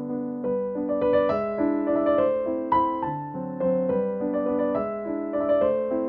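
Background music: a gentle piano piece playing flowing notes over held chords.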